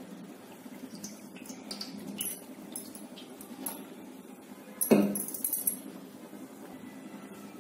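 Light clinks and taps of kitchen utensils against a metal pot while oil is poured for tempering, with one sharper clink about five seconds in.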